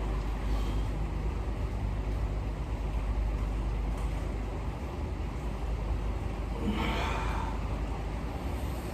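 Steady rain during a storm: a constant rushing noise with a strong low rumble. About seven seconds in, a short, louder rustle rises over it.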